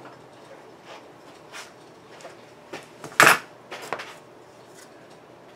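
Light handling clatter of a thin aluminium voice-coil former being picked up and turned in the hands: scattered small taps and knocks, with one sharp knock a little over three seconds in.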